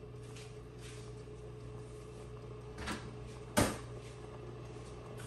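Steady low hum, with a soft knock just under three seconds in and a sharp wooden-sounding clack just after, the loudest sound.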